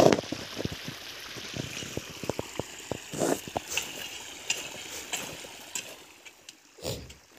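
Irrigation water pouring from small tubes in a black pipe into the furrows of a garlic field: a steady trickling rush. Through it come irregular dull knocks of a hoe chopping into the soil.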